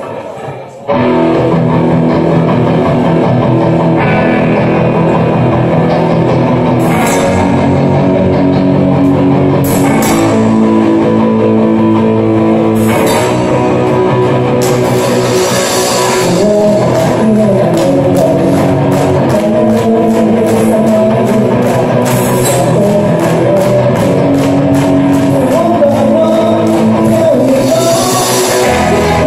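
Live rock band with electric guitars, bass guitar and drum kit kicking into a song about a second in and playing loudly, with cymbal crashes marking the beat changes.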